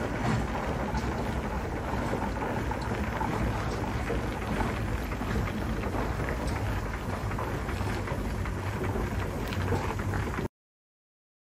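Steam traction engine running: a steady rumble with a hiss and scattered light clicks. It cuts off suddenly near the end.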